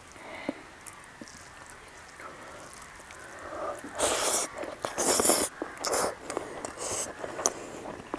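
Close-mic mouth sounds of eating a handful of rice and vegetables: wet chewing and smacking in several short loud bursts starting about four seconds in, after a quieter stretch of faint fingertip clicks against the plate.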